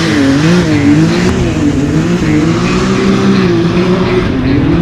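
Can-Am Maverick X3 Turbo's turbocharged three-cylinder engine revving hard as the side-by-side pulls away and spins donuts, its revs rising and falling again and again, with tyres spinning in the mud.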